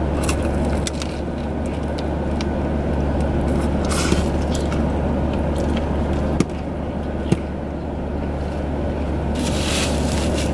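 Steady low hum inside a parked car, with a few sharp clicks and short rustles partway through and a longer rustle near the end.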